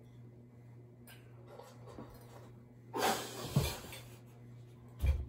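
A woman eating very spicy noodles coughs harshly about three seconds in, a short noisy fit of under a second, with a dull low thump near the end.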